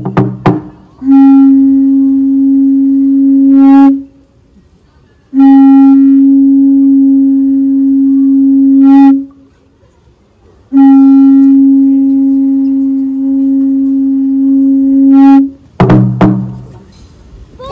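Conch shell trumpet blown in three long, steady blasts of a few seconds each with short pauses between, the traditional call that opens a Fijian torch lighting ceremony. A short shout is heard near the end.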